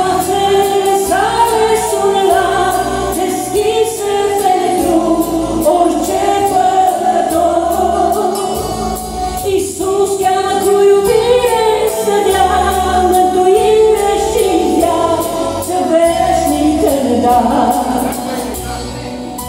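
A woman singing a Romanian Christian song into a microphone, over an instrumental accompaniment with a recurring low bass.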